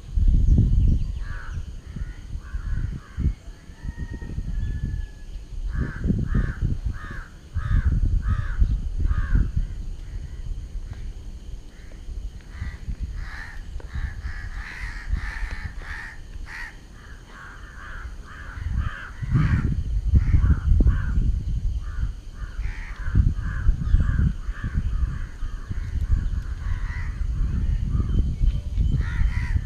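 Crows cawing, many short harsh calls in quick runs, several birds overlapping. Low rumbles come and go underneath.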